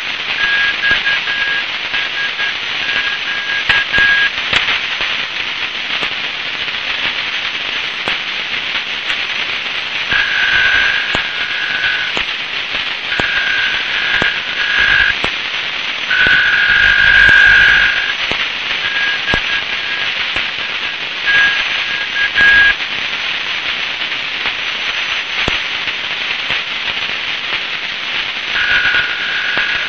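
Shortwave static hiss with scattered crackles from a Tecsun PL-680 receiver in SSB mode on 8417.5 kHz. Over it, the Guangzhou coast radio station's two-tone data signal comes and goes in bursts of one to several seconds, about six times.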